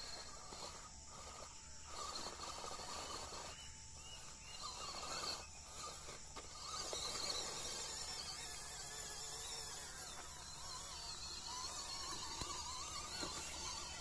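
Electric motor and gearbox of an MN99S 1/12-scale RC crawler whining in uneven spells, the pitch rising and falling with the throttle as it crawls over rock, over a steady high hiss of insects.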